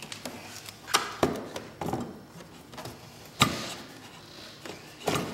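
A handful of irregular sharp knocks and taps as a rubber drive belt is worked by hand onto a snowmobile's metal drive clutch, belt and hands bumping the clutch sheaves; the loudest knock comes about three and a half seconds in.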